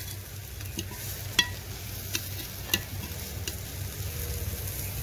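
A steel spoon stirring cluster beans (guar phali) in a metal pot, with a few sharp clinks of the spoon against the pot over a steady low frying hiss; the beans are steaming and nearly cooked.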